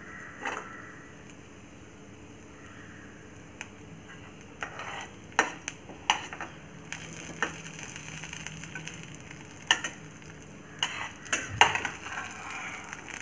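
A perforated stainless-steel ladle scrapes and clinks against a stainless-steel kadai as it stirs chana dal, cumin and garlic roasting in a little sesame oil. A low sizzle runs underneath, with irregular sharp clinks, more of them in the second half.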